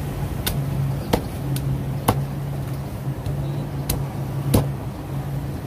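Meat cleaver chopping a roasted duck on a wooden chopping block: about six sharp chops at an uneven pace, over a steady low hum.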